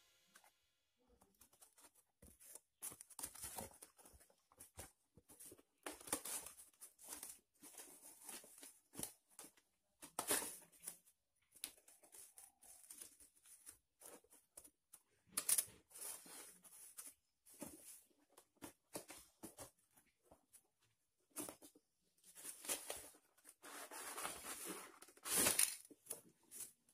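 Packaging being unwrapped by hand: irregular rustling, crinkling and tearing, with a few louder rips about ten seconds in, midway and near the end.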